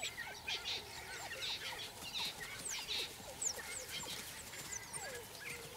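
Faint chirping and whistled calls, many short high notes overlapping, some sliding down in pitch, over a quiet outdoor background.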